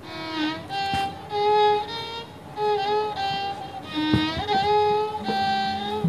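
Violin playing a slow melody of long held notes with slides between them, with a lower held accompanying note coming in about five seconds in.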